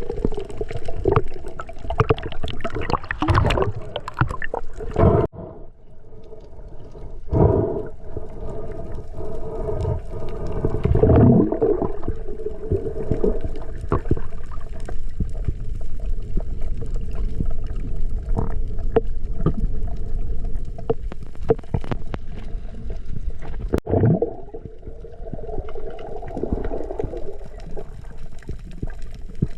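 Underwater water noise: gurgling and bubbling that swells every few seconds over a steady low hum.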